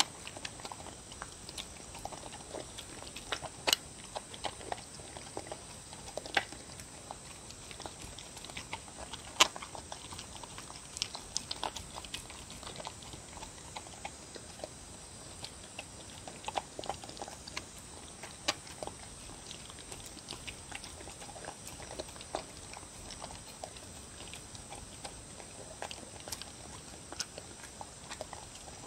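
A dog eating wet soup from a bowl: irregular lapping and chewing with scattered clicks against the bowl, a few of them sharper and louder.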